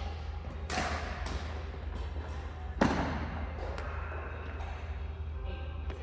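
Badminton rally: rackets strike the shuttlecock several times, with the loudest hit about three seconds in, each hit echoing in a large hall. A steady low hum runs underneath.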